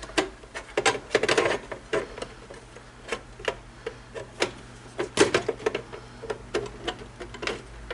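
Small hard objects being handled and fitted back into a box, giving irregular clicks and knocks, several a second at times, over a faint steady low hum.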